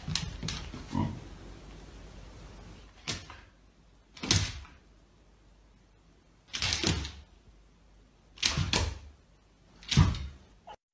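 Two huskies sparring, one pawing and swatting at the other in its dog bed: about five short scuffing thumps spread a second or two apart.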